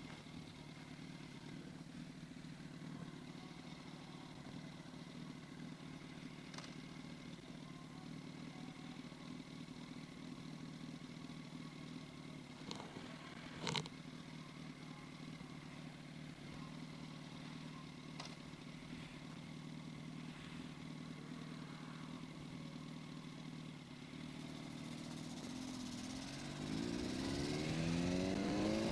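Yamaha R1 motorcycle's inline-four engine idling steadily, with a couple of sharp clicks about halfway through. Near the end the engine revs up, its pitch rising as the bike accelerates away.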